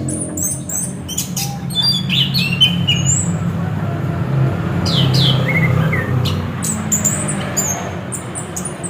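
Chestnut-capped thrush (anis kembang) singing: a run of quick, high chirps and short sliding whistles. A low steady hum runs underneath.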